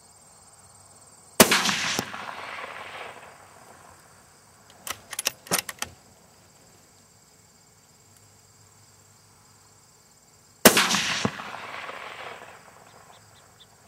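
.204 varmint rifle fired twice, about nine seconds apart, each shot followed by an echo rolling off over a couple of seconds. A short run of sharp clicks sounds midway between the two shots.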